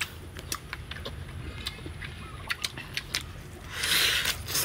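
Close-up eating sounds: a series of short wet mouth clicks and smacks while chewing duck meat, then a louder noisy bite into a cooked duck leg near the end.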